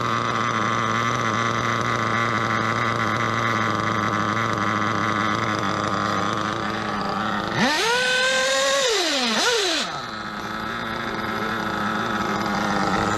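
Nitro RC car engines droning at a steady high pitch. About eight seconds in, one engine revs up, holds and falls back down over two seconds, with a second short rev at the end of it.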